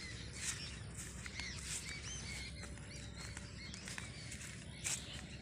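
Small birds chirping faintly in short, scattered calls over a steady low background rumble, with a brief click near the end.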